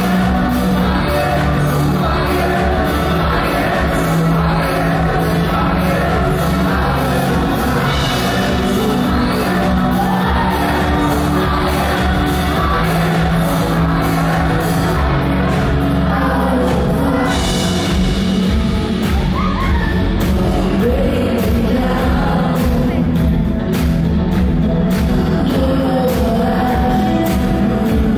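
A live pop band playing loud: a female lead vocal over electric guitar, drums and keyboard, with a steady drum beat.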